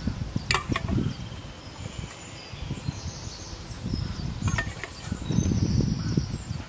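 A metal spoon clinking twice against a metal pot, over rustling handling noise and thin high insect chirping.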